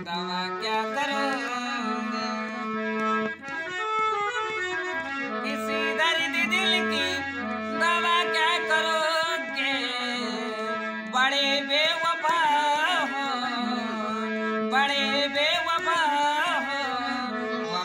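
Hand-pumped harmonium playing a melody over held notes, with a man singing over it.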